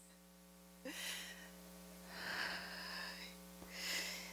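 A woman breathing audibly in three breathy gasps, the middle one the longest, over a faint steady hum.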